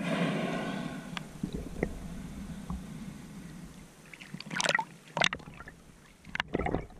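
Underwater water noise heard through a diving camera: a rush of water and bubbling, loudest at the start and fading over a few seconds, with scattered clicks and a few short loud bursts of bubbling and knocking near the end while a speared tilapia and the spear shaft are handled.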